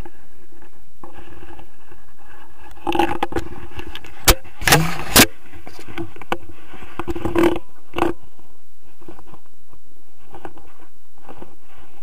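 Steady wind rush on an action camera during a tandem paraglider landing, broken about three seconds in by a cluster of scraping and sharp knocks, with a couple more knocks near eight seconds, as the harness gear and camera mount touch down on the ground.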